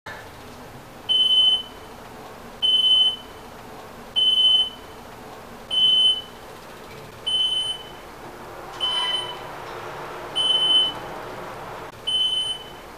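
Elevator's electronic beep: a high, steady tone about half a second long, sounding eight times at an even pace of about one every second and a half.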